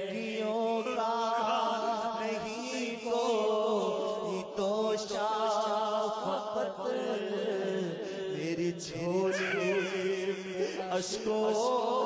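An Urdu naat: a voice chanting a devotional song, with a steady drone beneath it.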